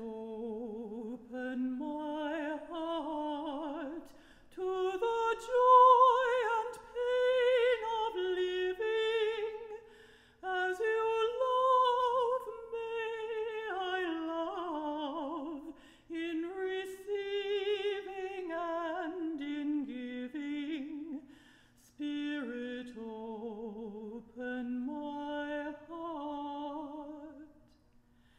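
A solo singer sings a slow melody with strong vibrato, in long phrases broken by short pauses for breath, over a faint steady held tone.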